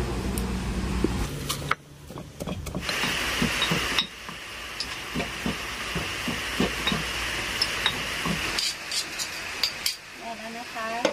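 Pestle pounding in a stone mortar, short dull knocks about two a second, working seasoning into a mackerel chili paste; near the end a spoon clinks against the mortar.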